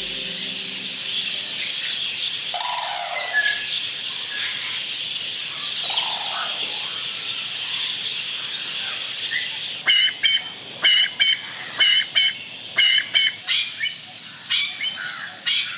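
A dense chorus of many birds chirping and whistling. From about ten seconds in, a louder bird cuts through with a run of short, sharp calls, about two a second.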